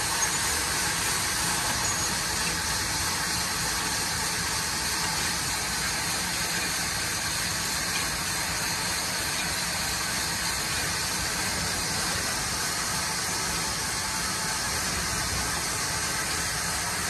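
Machinery running steadily: an even engine hum with a hiss over it.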